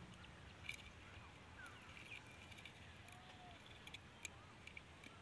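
Near silence: faint outdoor background with a few faint, short clicks.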